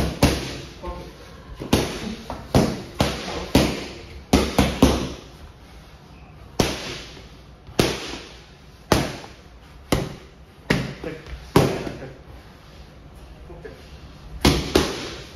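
Boxing gloves striking focus mitts: a series of sharp, loud smacks, first in quick combinations of two or three, then single punches about a second apart, and another fast combination near the end. Each smack leaves a short echo.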